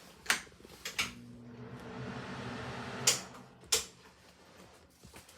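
Wall switches flicked four times with sharp clicks, two close together near the start and two more about three seconds in. Between the second and third clicks a steady low electrical hum runs, from a fixture switched on and then off again.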